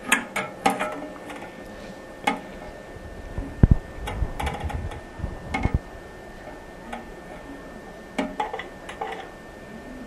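Brass ball cock fill valve being handled and fitted inside a toilet tank: irregular small clicks and knocks of the metal parts, with a couple of dull thumps near the middle.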